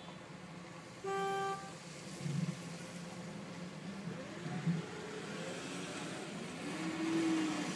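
Stalled traffic heard from inside a car: a steady low engine hum, with a car horn beeping once for about half a second about a second in. Later, engine notes rise and fall as vehicles creep forward.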